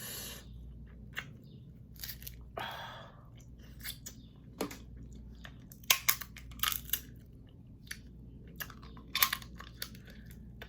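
Close-miked chewing of crab and lobster, with irregular crunches, clicks and wet smacks as crab legs are bitten and picked for meat.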